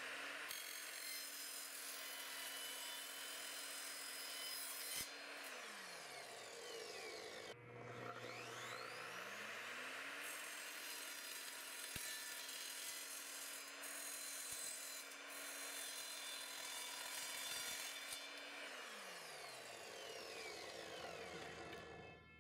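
Evolution 10-inch sliding miter saw making two metal cuts. Each time the motor whines slowly up to speed, the blade screeches through metal with a harsh high-pitched noise, and the motor winds down with a falling whine. The first cut is through an aluminum drop-ceiling grid strip; the second, starting about a third of the way in, is through a steel shelving bracket.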